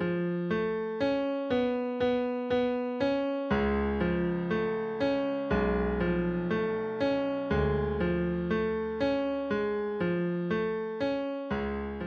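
Background music: a keyboard tune of evenly paced notes, about two a second, with deep bass notes joining in for stretches of a couple of seconds.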